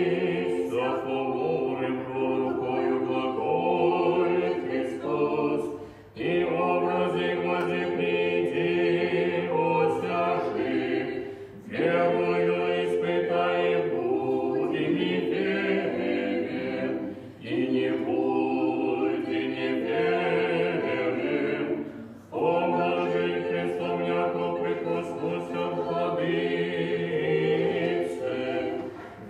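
Unaccompanied Orthodox liturgical choir singing in held chords. The chant comes in phrases of about five or six seconds, each ending in a brief pause.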